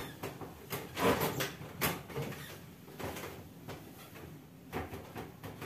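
A few faint, scattered knocks and rattles of something being handled, with quiet room noise between them.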